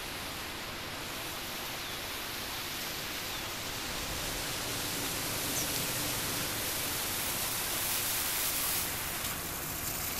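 Pickup truck's tyres running through shallow floodwater on a paved road, a steady rushing hiss of spray that grows louder as the truck passes and eases off near the end.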